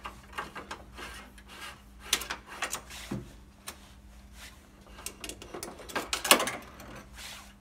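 Scraping and rubbing of a battery cable being dragged through the narrow gap behind the wing and headlight of a van, with irregular knocks of cable and wire against the bodywork. The loudest scrape comes a little after six seconds in.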